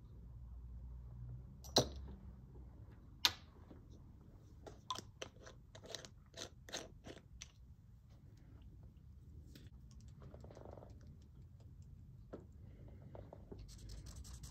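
Small glass ink bottles and a glass dropper handled on a table: two sharp clinks about two and three seconds in, then a run of quick light taps for about three seconds while the small bottle with its metal cap is handled. Near the end a cotton swab scrubs ink onto paper with a dry scratching.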